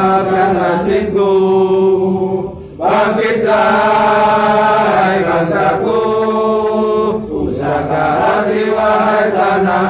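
A group of men singing a patriotic song together in unison, in long held notes. There is a brief pause for breath about three seconds in.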